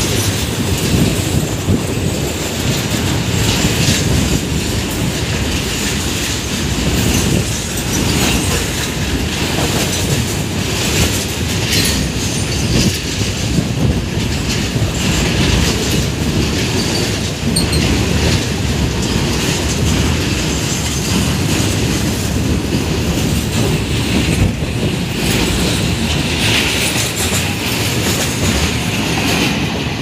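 Freight train of flat wagons passing close by: a steady rumble and clatter of steel wheels on the rails, with some wheel squeal.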